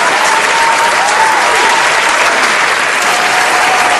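A large crowd applauding, dense and steady throughout, with a thin wavering tone above the clapping.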